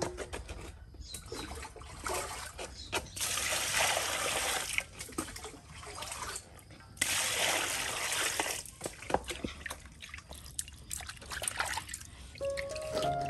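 Water poured from a dipper into a metal basin twice, each pour lasting a couple of seconds, with small splashes and sloshing as a pig's head is washed in the water.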